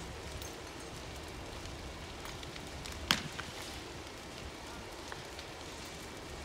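Burning building crackling and popping, with one loud sharp crack about three seconds in.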